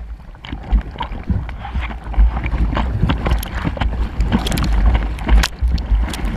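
Seawater splashing and sloshing close to a GoPro at water level on a bodyboard, with wind rumbling on the microphone. The splashing gets louder and busier about two seconds in, ending in spray breaking over the camera.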